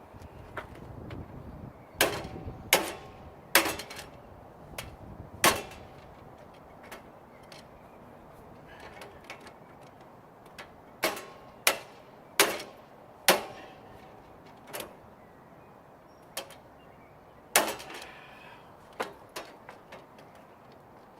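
Hammer blows on a steel bike U-lock that has been chilled with canned air spray to make it brittle: sharp metallic strikes with a brief ring, in bursts of several quick blows with pauses between, plus a few lighter taps.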